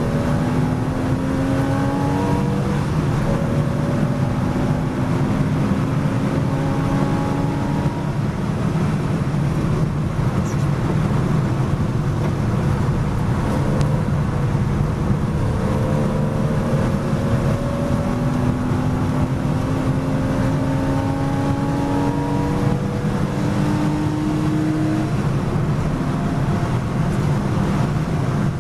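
Porsche Boxster S race car's flat-six engine heard from inside the cabin under hard acceleration. Its pitch climbs in long pulls, dropping back at each gear change, over a steady rush of road and wind noise.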